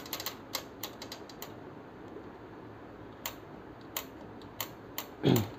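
Plastic paper-sensor flags inside an HP LaserJet M1005 MFP clicking as a finger flicks them to check that they move and work properly. A quick run of clicks comes in the first second and a half, then single clicks about every half second. Near the end there is one short, loud sound that falls in pitch.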